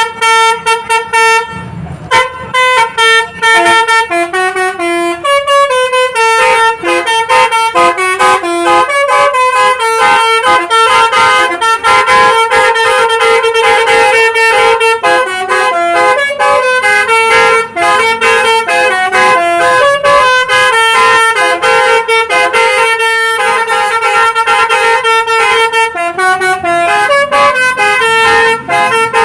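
Basuri telolet horn on a bus, a multi-tone musical horn, playing a fast melody of short, changing notes. It breaks off briefly about two seconds in, then plays on without a pause.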